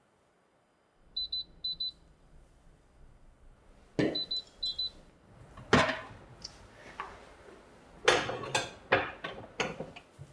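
A built-in oven's timer beeping in short high pairs, twice about a second in and twice more about four seconds in. Then the oven door and a glass-lidded casserole dish being handled: clunks and clattering as the dish is taken out and set down on its metal stand.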